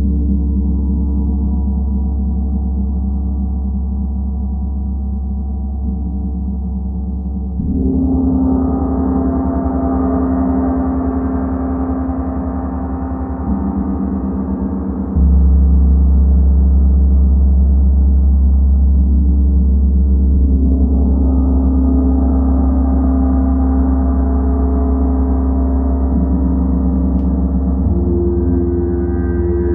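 Gong ringing in a continuous, layered drone of deep overlapping tones, swelling louder again several times as it is played on.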